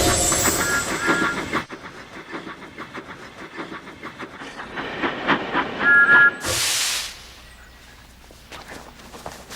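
Steam locomotive sound effects: loud train noise gives way to a rhythmic clatter of the engine running on the rails, with two short high whistle toots. About six and a half seconds in comes a sudden burst of steam hissing.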